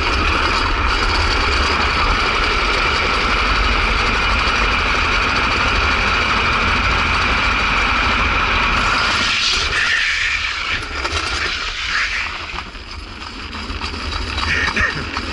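Drift trike rolling fast on asphalt: the steady rumble of its hard rear wheels on the road under heavy wind buffeting on the handlebar camera's microphone. The noise drops off about ten seconds in as the ride eases.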